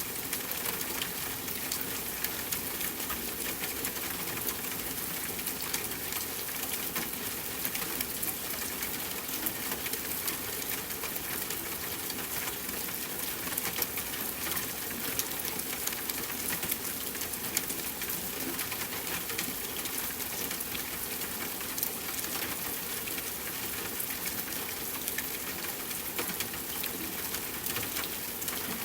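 Steady soft rainfall: an even hiss of rain with many small drop ticks, unchanging throughout.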